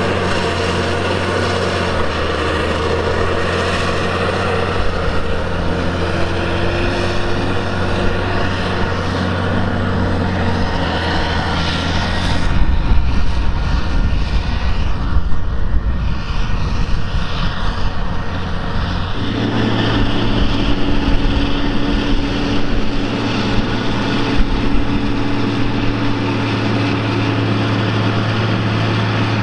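Heavy diesel engine of a CAT Challenger tractor pulling scraper pans, running steadily. About halfway through it grows louder and rougher for several seconds, then settles into a steady, slightly higher note.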